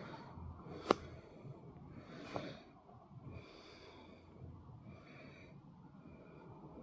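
Heavy breathing of a person holding the recording phone, one breath about every second and a half. Two sharp clicks come through, one about a second in and one about two and a half seconds in.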